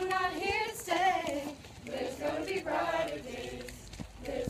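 A group of young people singing together, several voices holding notes in phrases.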